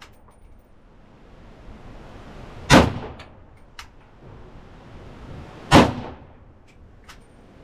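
Arsenal AK-47-pattern rifle firing 7.62x39 rounds in semi-auto: two single shots about three seconds apart, each with a short echo. Fainter clicks and knocks follow each shot.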